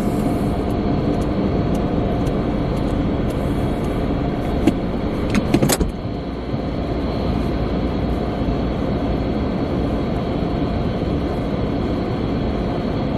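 Steady hum of a stopped car heard from inside the cabin, with a few clicks and one short, sharp knock between four and six seconds in.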